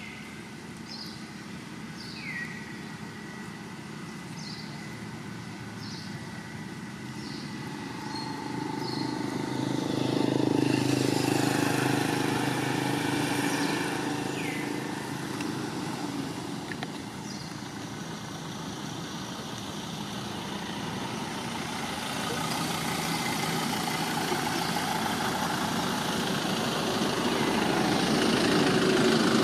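Motor traffic on a road: a vehicle passes, loudest about ten seconds in, and another draws closer toward the end. Short high chirps repeat during the first several seconds.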